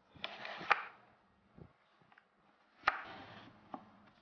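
Plywood pieces handled on a workbench: two short scraping rubs, each with a sharp knock of wood on wood, one near the start and one about three seconds in.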